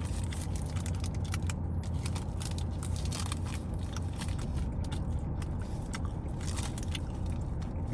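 Crunching and chewing a hard-shell taco: rapid crisp cracks and crackles over a steady low hum.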